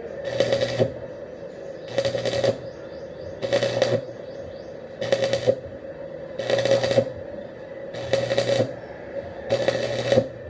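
Arc welder laying a series of short welds: the arc crackles and sputters for well under a second, stops, and strikes again about every second and a half, seven times, with a low hum from the welder under each weld.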